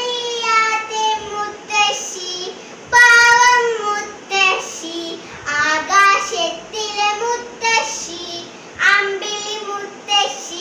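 A young girl singing a children's action song in a high voice, in short phrases with brief breaks between them.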